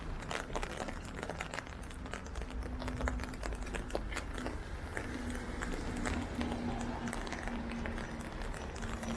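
Steady rain with many sharp drops ticking close by, over a low rumble. A steady low hum comes in about two and a half seconds in and carries on with short breaks.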